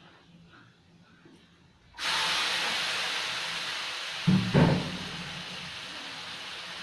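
Raw prawns going into hot oil in a stainless steel wok: a loud sizzle starts suddenly about two seconds in and settles to a steady sizzle. About halfway through there are two short knocks.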